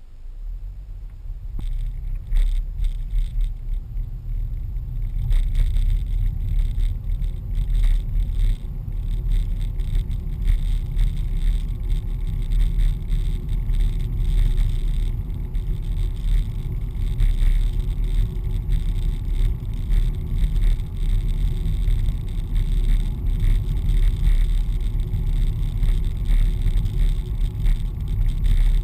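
Car driving, heard from inside the cabin: a low engine and road rumble that builds over the first few seconds as the car pulls away, then holds steady at speed, with scattered crackles above it.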